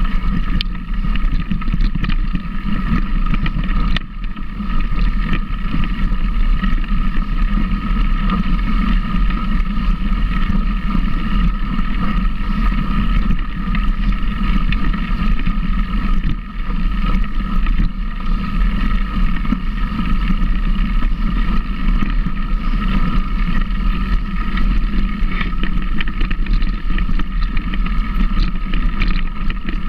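A vehicle's engine running steadily under load, heard from on board with heavy wind rumble on the microphone.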